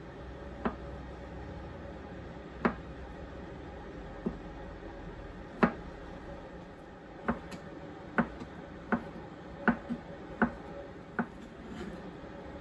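Chef's knife cutting through soft avocado and knocking on a plastic cutting board as the avocado is sliced and diced: about eleven separate knocks, spaced irregularly, coming quicker in the second half.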